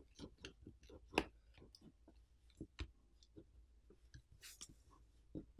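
Plastic pry pick clicking and scraping along the glued seam of a Samsung Galaxy F54's plastic back plate as it is pried loose: a string of faint, sharp clicks, the loudest about a second in, and a short scratchy scrape shortly before the end.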